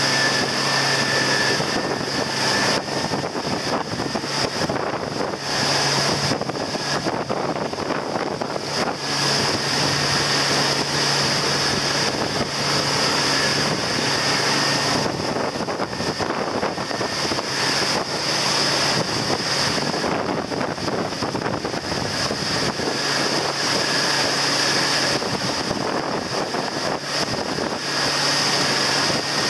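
Motorboat engine running steadily at speed, with water rushing in the churning wake and wind buffeting the microphone.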